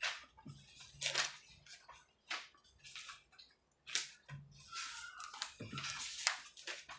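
Ballpoint pen scratching on paper in short, irregular strokes while signing a stack of documents, with sheets of paper rustling; a longer rustle of a page being turned comes about five to six seconds in.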